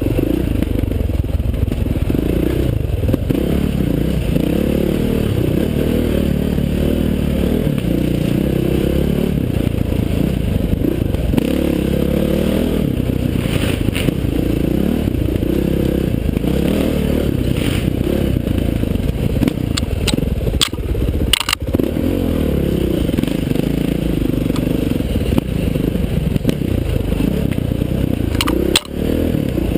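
KTM 530 XC-W dirt bike's single-cylinder four-stroke engine running under constant throttle changes, its revs rising and falling over rough ground. A few sharp knocks are heard around the middle and again near the end.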